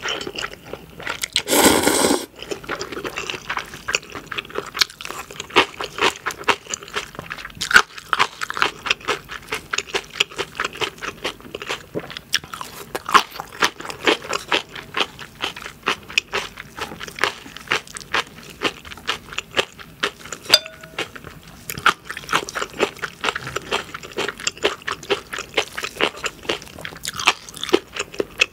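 Close-miked eating sounds: a loud slurp of instant ramyeon noodles about two seconds in, then steady wet chewing with crunchy, crackly bites.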